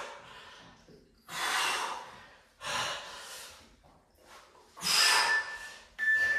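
A man breathing hard: four heavy, forceful breaths a second or two apart, the sound of someone out of breath in the middle of a strenuous kettlebell exercise.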